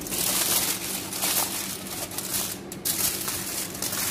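Aluminium foil crinkling and crackling as it is folded and pressed down over a tray of seasoned fish, a rapid irregular crackle.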